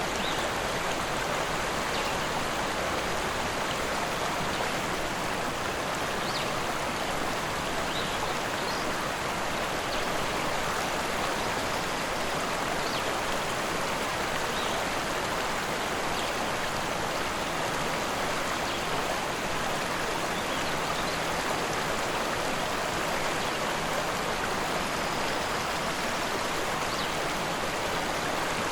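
Rushing river: a steady, unbroken rush of flowing water, with faint brief high ticks of splashing here and there.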